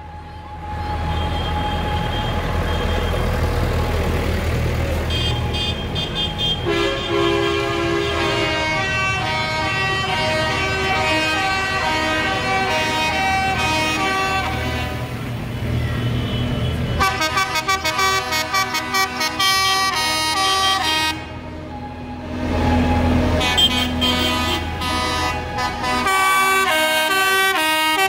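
Tractors driving past with their engines running, while horns toot again and again at several different pitches.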